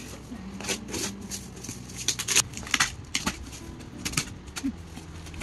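Gift unwrapping: foil wrapping paper crackling and rustling, then scissors slitting the packing tape on a cardboard parcel. It comes as an irregular run of sharp crackles and rustles, the loudest about two to three seconds in.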